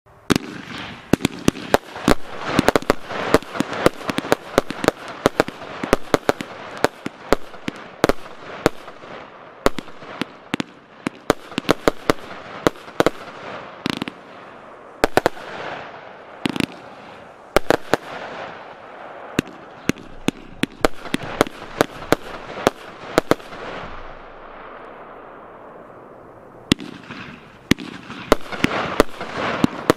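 Piromax PXC209 'Kalashnikov' 138-shot consumer fireworks battery (20/25 mm calibre) firing in rapid succession: sharp shots and bursts several times a second over a continuous hiss. Near the end the shots thin out into a brief lull with a fading hiss, then rapid firing resumes.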